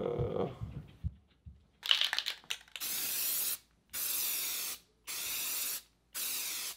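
Aerosol can of hammered spray paint sprayed onto bare steel table legs in four short hissing bursts of about two-thirds of a second each, starting near the middle. A quick run of clicks comes about two seconds in, and a brief low voice-like sound at the very start.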